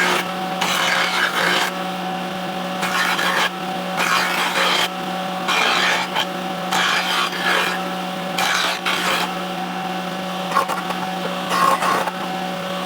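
An electric power tool's motor running steadily, worked against wood in repeated rasping passes about one every one to two seconds.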